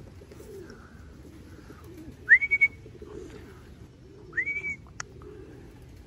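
A person whistling two short calls, each rising quickly and then held at one high pitch, about two seconds in and again about four seconds in, to call racing pigeons down into the loft. Pigeons coo softly underneath, and there is a sharp click near the end.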